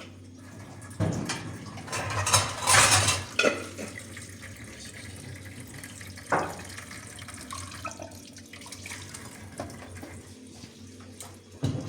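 Water from a tap running in short gushes, with dishes clattering in a sink.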